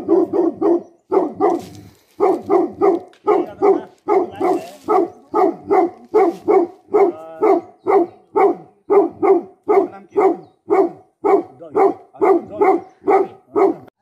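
Tibetan Mastiff (Bhote Kukur) barking steadily at unfamiliar people, about three barks a second with a few brief pauses; the barking stops near the end.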